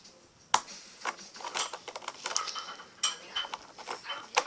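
Plastic building bricks clicking and clattering as they are handled and pressed onto a brick-studded plastic mug: a string of sharp, irregular clicks.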